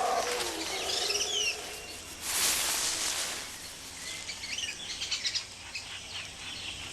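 Rainforest ambience: small birds giving short, quick chirping calls, with two bursts of leafy rustling, the louder one a little past two seconds in.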